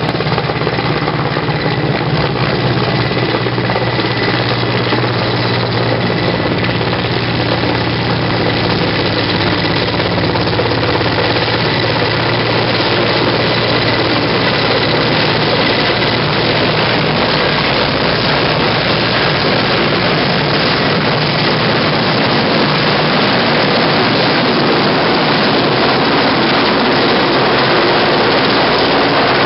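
Large transport helicopter's rotor and turbines, a loud steady chopping drone that grows slightly louder as the helicopter comes in low and close.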